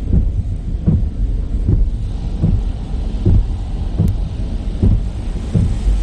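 Automatic car wash heard from inside the vehicle's cabin: a steady low rumble with regular thumps a little under once a second, and a spray-like hiss coming in about two seconds in as the wash starts up.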